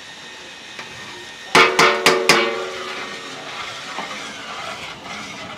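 A metal bowl knocked four times in quick succession against the rim of a large metal cooking pot, each knock ringing briefly, as the last of the chilli powder is shaken out. Underneath, a faint steady hiss.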